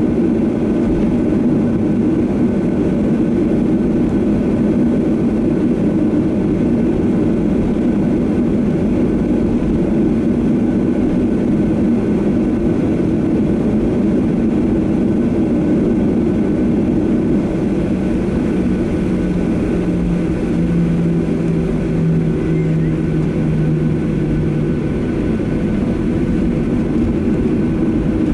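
Cabin noise inside a Boeing 737-800 during taxi: its CFM56-7B jet engines running at low power make a steady, dense hum. About two-thirds of the way through, a low tone comes in, steps down a little in pitch and stops a few seconds later.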